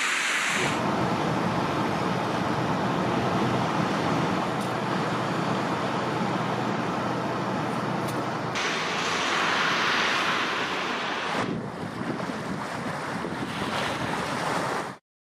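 Blizzard wind rushing and buffeting the microphone, a steady roar of noise that changes abruptly a few times as the clips change and cuts off suddenly near the end.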